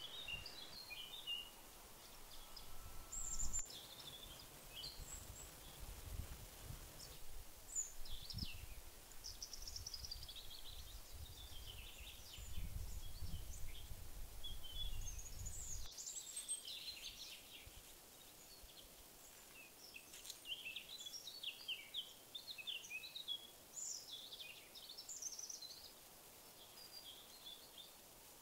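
Small birds chirping and trilling in woodland, many short calls scattered throughout. A low rumble sits underneath and stops abruptly about halfway through.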